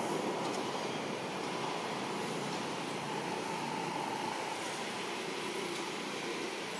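Steady ambient background noise with no distinct events, a constant hum-like hiss at an unchanging level.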